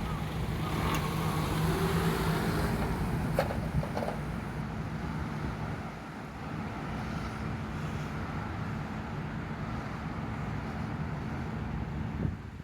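Kumamoto Electric Railway 01-series electric train running past, its Mitsubishi IGBT-VVVF inverter motors whining with gliding pitch in the first few seconds. Two sharp clacks of wheels on the rails come a few seconds in, then a steadier rolling noise that drops a little about halfway through.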